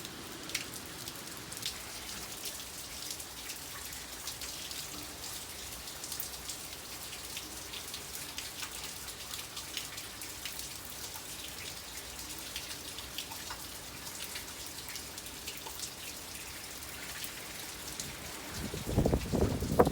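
Steady hurricane rain, with many small drop ticks over an even hiss. A brief louder low rumble comes near the end.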